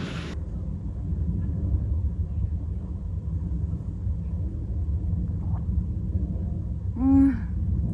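Steady low rumble of outdoor background noise. A person makes a brief hummed vocal sound near the end.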